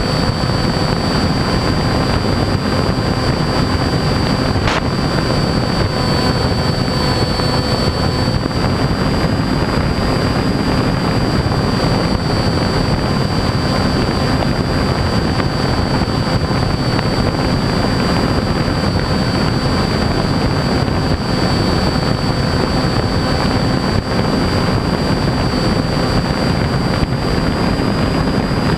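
RC airplane's motor and propeller running steadily at cruise with a steady high whine, under heavy wind rush over the onboard microphone.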